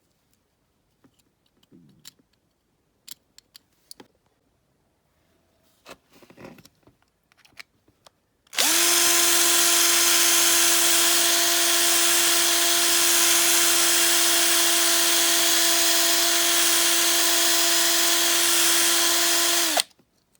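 Small electric drill running at a steady pitch for about eleven seconds, drilling out the rivet that holds a die-cast toy car's base, then stopping abruptly. Before it starts there are a few light clicks and taps.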